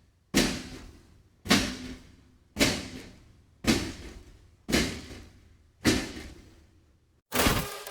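Robot walking sound effect: heavy mechanical footfalls, six strikes about one a second, each sharp at the start and dying away. Near the end the steps change to shorter, buzzier mechanical pulses with a steady tone running through them.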